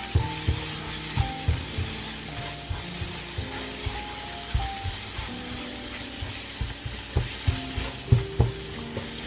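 Ground spice paste sizzling as it fries in oil in a nonstick pan, stirred with a spatula that knocks against the pan bottom every second or so. The paste is close to fully cooked.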